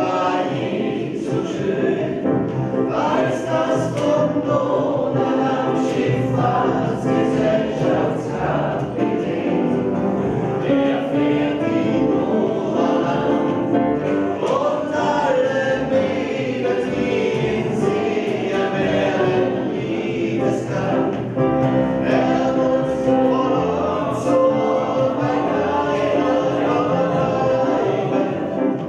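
Viennese song (Wienerlied) performed live: several voices singing together to piano, ukulele and double bass.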